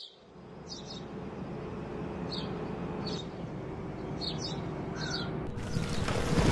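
A bird giving short, high calls, about six of them spaced over several seconds, over a steady background hiss. About five and a half seconds in, a louder rush of noise swells up.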